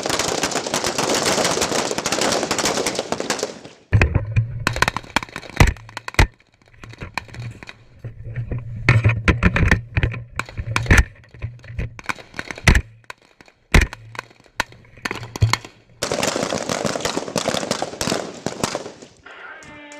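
Rifle fire: many sharp shots, some single and some in quick strings, over a low steady hum. A dense rush of noise fills the first few seconds and comes back near the end.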